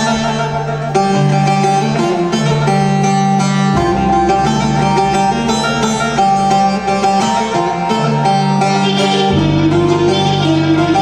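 Live instrumental folk music led by plucked string instruments, with a deep bass line coming in about four seconds in.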